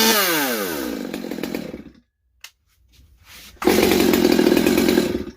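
STIHL MS200T two-stroke chainsaw, with base gasket delete and muffler mod, coming off a rev with its pitch falling and dying away, being tuned by ear. After a short quiet gap with a click it runs again at a steady high speed for about a second and a half, then cuts off suddenly.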